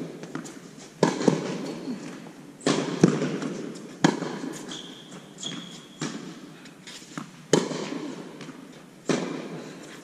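Tennis rally in an echoing indoor court: racquets hitting the ball and the ball bouncing on the hard court, sharp pops every second or so, each followed by a long echo.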